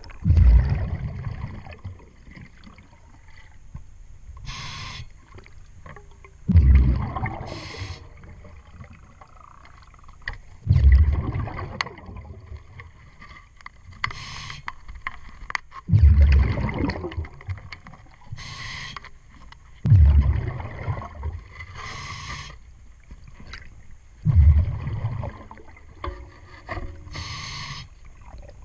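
A scuba diver breathing through a regulator underwater: a short hiss of each inhalation followed by a loud rumbling rush of exhaled bubbles, in a slow cycle about every four to five seconds. A few faint clicks come between breaths.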